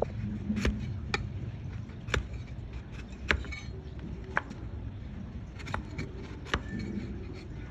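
Donkey hoof being trimmed: sharp, irregular snaps and clicks, about one a second, as a cutting tool bites into the hoof horn, over a steady low background noise.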